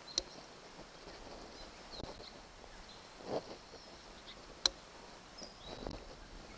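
Handling noise from a small hand-held grease gun: two sharp metallic clicks and a softer knock as its plunger rod is worked. Faint bird chirps in the background.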